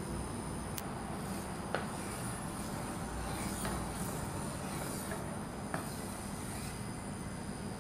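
Steady hum and hiss of an induction cooktop heating cooking oil in a nonstick pan, with a few light taps of a wooden spatula against the pan.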